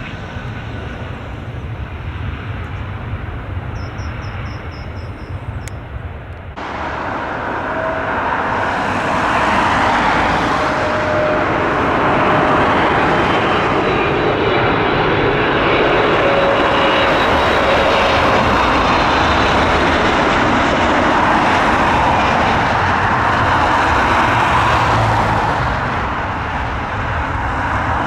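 Jet engines of a large airliner arriving at the runway: a steady, loud rush of engine noise with a faint whine. About six seconds in, the sound cuts suddenly to a louder, fuller noise that holds for the rest.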